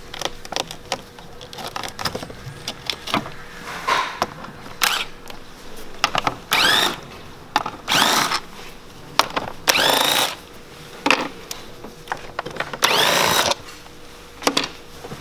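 Cordless drill-driver run in several short bursts, each rising and falling in pitch, undoing the fasteners that hold the engine's air flow sensor to the intake. Clicks and rattles of parts being handled come between the bursts.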